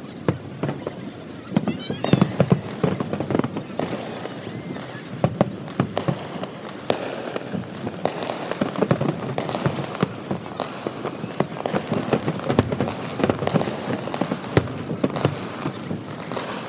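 Distant aerial fireworks shells bursting in a rapid, continuous barrage of bangs and crackles.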